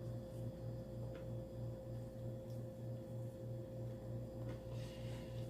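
A few faint, soft mouth clicks of chewing over a steady low electrical-sounding hum that pulses about four times a second, with a constant higher tone above it.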